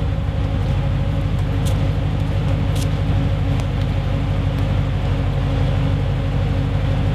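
Ford AU II LTD's Windsor 5.0 V8 idling steadily through Hurricane extractors, 200-cell cats and a Redback 2.5-inch single exhaust, with an even, unchanging note.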